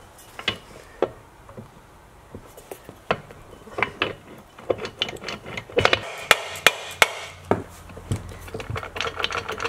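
Knocks, clicks and rubbing from the cast aluminium chain case and the hub and backing-plate assembly of a Honda S600 chain-drive rear end being handled and fitted together, as a splined shaft is worked into line. A few scattered taps at first, then a quicker run of sharp knocks in the second half.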